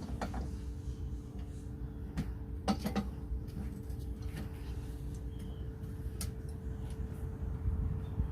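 A few light clicks and knocks, the loudest a quick pair about three seconds in, over a steady low hum.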